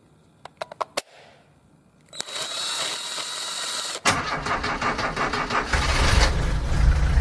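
A car engine being started: a few sharp clicks, then a starter whirring for about two seconds. About four seconds in, the engine fires and runs with a rhythmic beat, getting louder and deeper near the end.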